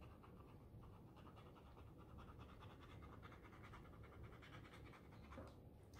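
Faint, quick, even scratching: a pointed tool scraping through black acrylic paint into a crayon layer on paper, stroke after stroke.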